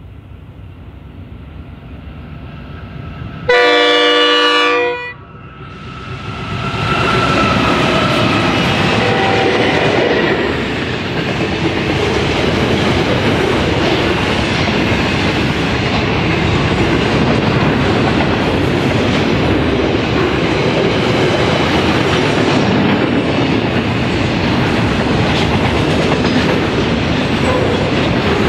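Freight train passing: a diesel-electric locomotive's multi-note horn sounds one loud blast of about a second and a half as it approaches, cut off sharply. Then the locomotives go by with their engine note falling in pitch, followed by the steady rumble and clickety-clack of wagons rolling past.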